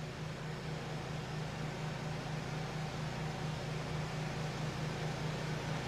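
Steady low hum with a faint hiss above it: room background noise while nobody speaks.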